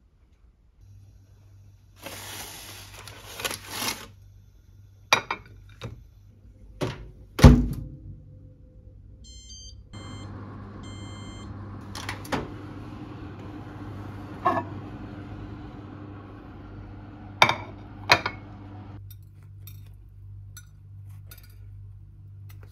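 Built-in microwave oven: a heavy thump and knocks, then a short run of beeps, then the oven's steady running hum for several seconds. The hum stops near the end. Sharp clicks of a plate being handled sound over it.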